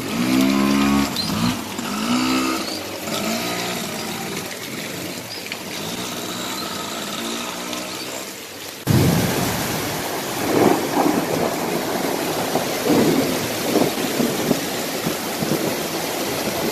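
Rain and running floodwater with a few short pitched calls over it. About nine seconds in the sound cuts to a louder, surging rush of muddy floodwater pouring down a sloping street.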